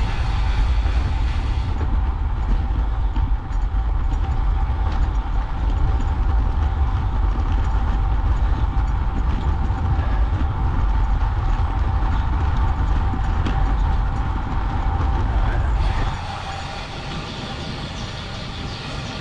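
Wind rumbling on the microphone, with road noise from riding a road bike; it drops off sharply near the end as the bike slows.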